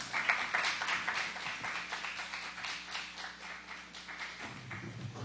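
Congregation clapping, starting all at once and slowly thinning out, over a faint steady low hum.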